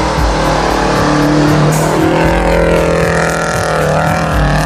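Off-road 4x4 engine revving as the truck drives up a snowy trail past the camera. Its pitch wavers up and down in the second half as the revs rise and fall.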